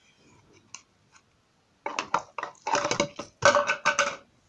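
Slime being squeezed and pressed by hand, a few faint clicks and then, from about halfway, a run of wet, crackling squelches that is loudest near the end.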